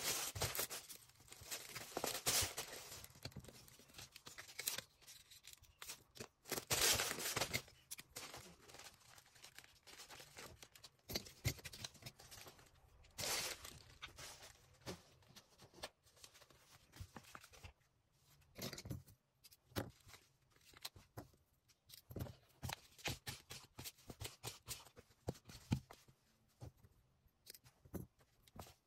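Packaging handled while packing an order by hand: irregular rustling and crinkling with scattered clicks, scrapes and short tearing noises, loudest in a few bursts.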